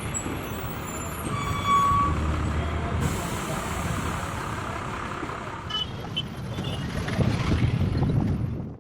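A bus pulling into a bus stand, its engine running, with a hiss like air brakes setting in suddenly about three seconds in.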